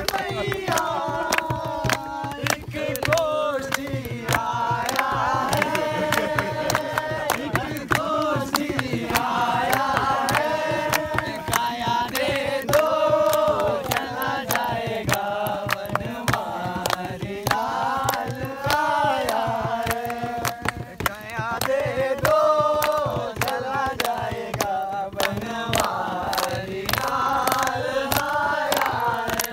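Voices singing a folk song to steady rhythmic hand clapping, as accompaniment for dancing.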